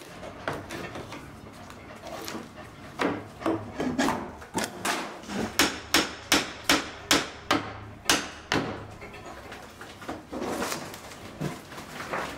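Demolition of wooden wall panelling with a steel pry bar and hammer: sharp hammer blows on wood, with scraping and creaking as the panels are levered loose. In the middle comes a quick run of about ten blows, roughly three a second.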